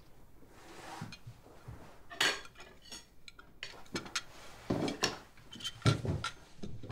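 Plates and cutlery clinking and knocking at a dinner table, a series of sharp clatters, the loudest about two seconds in and near the end.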